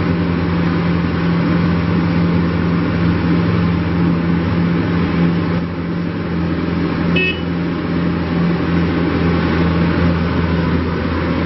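The 2015 New Holland Boomer 41's 40 hp diesel engine running steadily, with a short high beep about seven seconds in.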